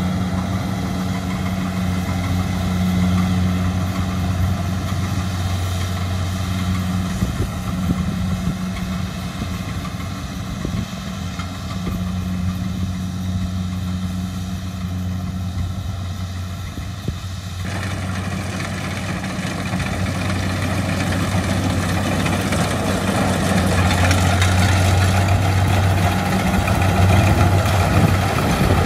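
Kubota DC70 combine harvester running steadily while cutting and threshing rice: a constant low engine hum. About two-thirds in, the sound turns brighter and noisier as the machine is heard from its side.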